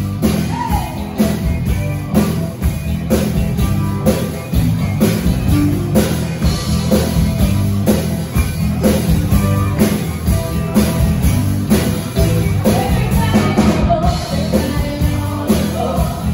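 Live band playing an upbeat party song with drums, bass, electric guitar and keyboards at a steady beat, with female lead vocals.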